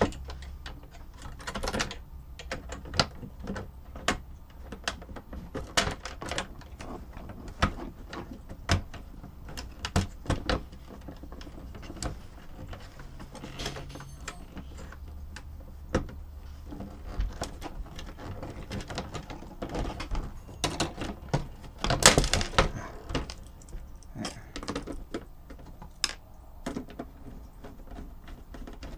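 Irregular clicks and knocks of small plastic and metal parts of a robot's tray mechanism being handled and worked on by hand, with a louder clatter about 22 seconds in.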